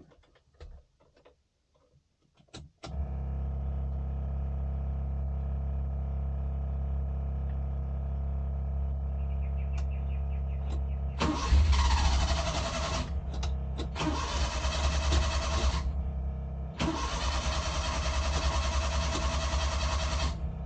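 Suzuki F6A engine turning over on the starter in two long cranking attempts of about four seconds each, a short pause between them, over a steady low hum that starts about three seconds in. This is the crank-but-won't-start fault being shown.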